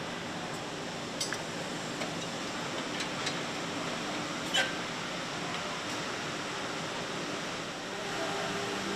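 Steady hum and hiss of an engine assembly hall, with a few light metallic clicks and clinks, the sharpest about four and a half seconds in.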